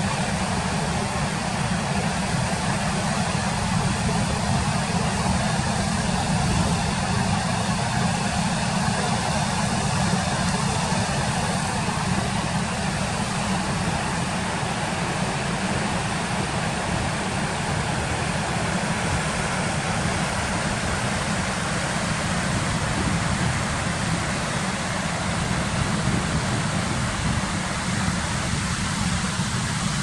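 Waterfall and white-water rapids rushing steadily, a deep, even noise with no breaks.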